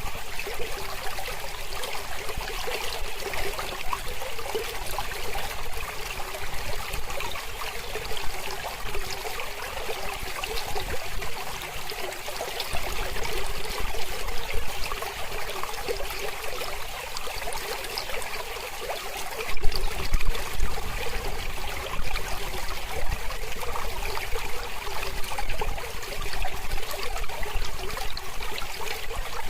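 Mountain river flowing over rocks: a steady, even rush of water. About two-thirds of the way through, a brief low rumble rises under it.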